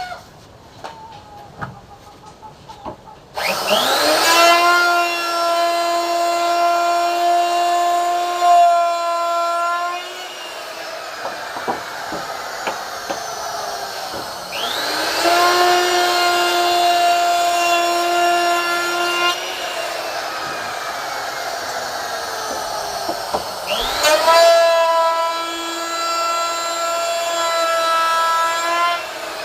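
A high-speed electric woodworking power tool spins up three times to a steady, high-pitched whine. Each time it runs for several seconds, then drops off and winds down, with a softer noisy stretch between runs.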